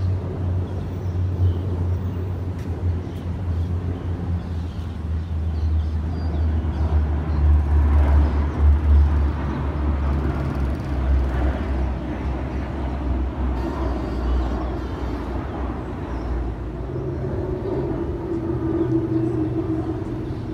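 Formation of Royal Malaysian Air Force jets flying over: a deep jet rumble that swells to its loudest about eight seconds in, then eases into a steadier drone.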